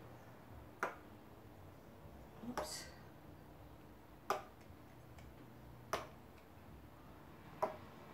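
Sharp clicks at an even pace, about one every second and a half to two seconds, as a plastic squeeze bottle of acrylic paint is squeezed and released over and over; one, a little before the halfway point, trails into a short squelch.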